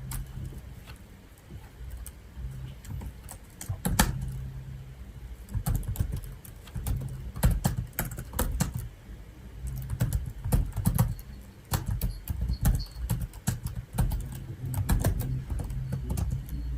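Typing on a computer keyboard: irregular keystrokes, sometimes in quick runs and sometimes in short pauses, over a steady low background hum.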